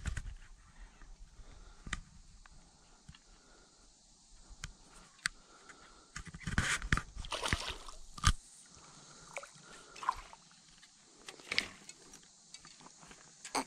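A small spotted bass splashing at the water's surface as it is reeled in, in a cluster of short splashes about six to eight seconds in and another near the end, with scattered light clicks between.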